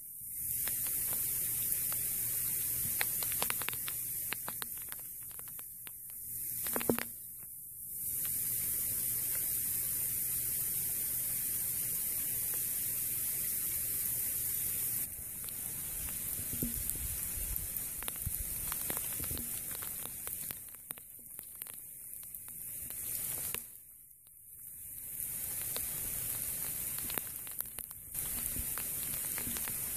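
Freezing rain and sleet falling on icy ground: a steady high-pitched hiss with scattered light ticks of pellets and a faint low hum underneath. The hiss cuts out briefly a few times.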